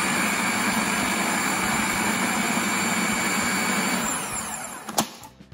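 Food processor motor running steadily as the blade beats buttercream, with a low hum and a steady whine. It is switched off about four seconds in and winds down, and a sharp click follows near the end.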